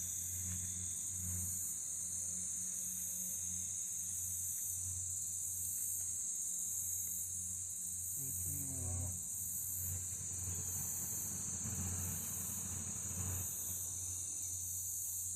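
Steady high-pitched chorus of late-summer insects such as crickets, with a short falling voice-like sound about eight seconds in.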